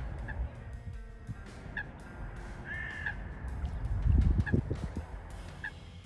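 Waterbirds giving short single call notes every second or so, with one longer call about three seconds in, over a low rumble that peaks about four seconds in.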